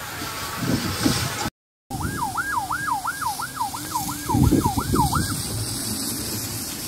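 Emergency vehicle siren in a fast yelp, its pitch sweeping up and down about three times a second. It starts about two seconds in, after a brief dropout, and stops about five seconds in. Under it runs a steady hiss of fire hoses spraying onto the burning depot.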